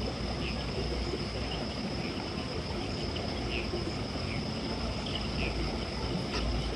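Night insects: a steady high-pitched trill with short chirps scattered through it, over a low rumble, and a single click near the end.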